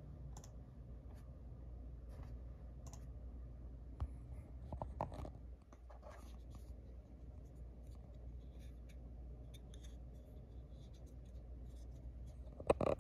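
Small plastic clicks and rubbing as a Sony Walkman's external AA battery case is picked up and handled, with a louder bout of handling about four seconds in and one sharp click or knock near the end. A low steady hum runs underneath.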